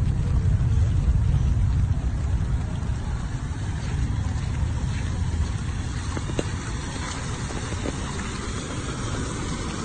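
A car drives through standing floodwater on the street, its tyres sending up spray, and the hiss of the water grows louder near the end as it comes closer. Under it is a low rumble of wind on the microphone, heaviest in the first few seconds.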